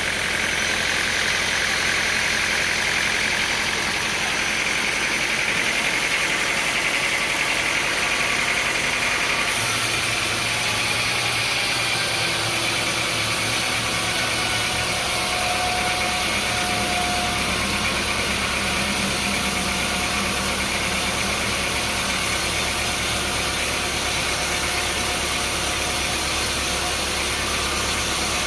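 Engine running steadily with a constant hiss. Its low hum changes abruptly about ten seconds in and again a few seconds later.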